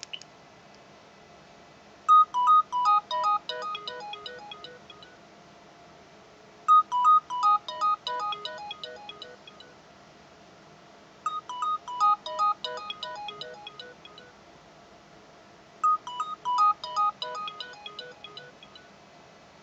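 A DECT cordless phone handset ringing with a melodic ringtone: four rings about four and a half seconds apart, each a quick run of notes falling in pitch. A single key click comes at the very start.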